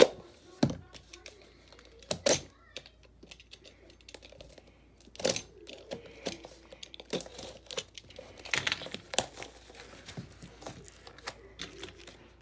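A parcel being cut open with a knife and its packaging torn and crinkled: irregular rips, scrapes and crackles with a few sharp clicks.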